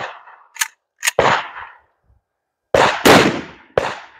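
Serbu Super Shorty 12-gauge pump shotgun firing buckshot: two loud shots about a second and a half apart, with the clack of the pump being worked just before the first. A shorter, sharper bang follows about a second after the second shot.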